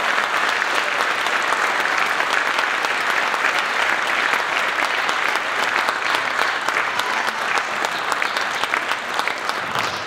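Audience applauding, a dense, steady clapping that fills the hall.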